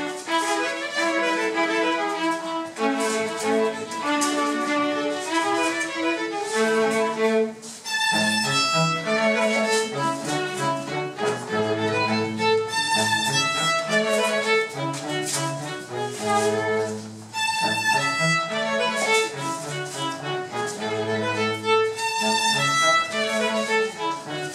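A live string group, violin over cello, playing a lively Regency dance tune. After a brief break about eight seconds in, a fuller, lower bass line joins the melody.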